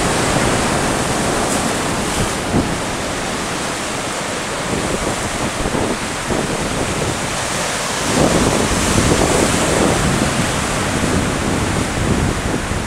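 Sea surf breaking and washing over rocks, with wind buffeting the microphone; the wash swells louder about eight seconds in.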